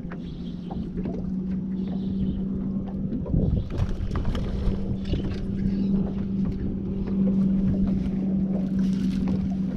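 Wind on the microphone and choppy water against a bass boat's hull, under a steady low hum. A few light clicks and knocks come from gear on the deck.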